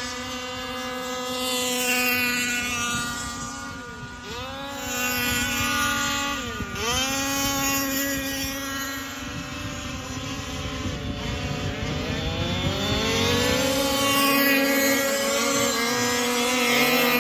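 Several large-scale (1:5) gas RC cars' small two-stroke engines buzzing at high revs. The pitch drops sharply twice, about four and six and a half seconds in, as they back off the throttle, then climbs slowly again later on.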